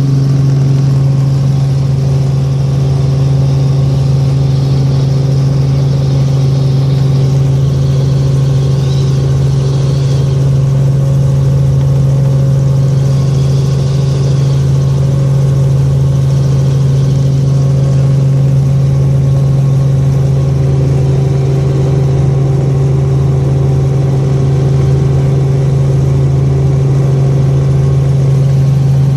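Light helicopter running at a steady pitch, a loud constant drone of engine and rotors with a strong low hum.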